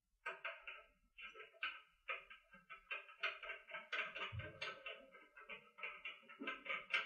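Irregular run of short clicks and scrapes, several a second, as a microscope objective is screwed by hand into the nosepiece of an inverted microscope.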